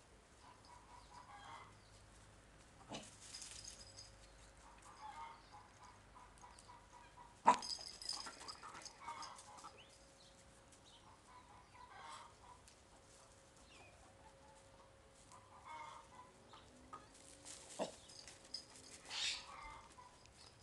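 Chicken clucking softly at intervals of a few seconds. A sharp knock about seven and a half seconds in is the loudest sound, with smaller knocks near three and eighteen seconds.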